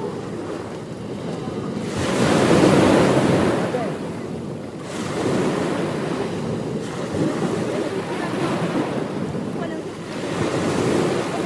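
Ocean waves breaking and washing up a beach, surging and falling back every few seconds; the loudest surge comes about two seconds in.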